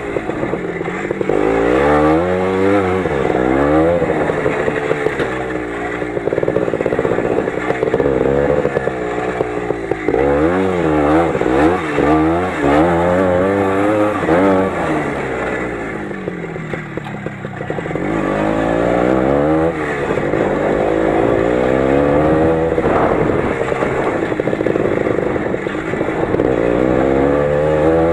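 Lider 3.221 20 hp motorcycle engine under way, its pitch rising and falling again and again as the throttle is opened and eased off, dropping lower for a moment about two-thirds of the way through. The ride is rough, with some clattering.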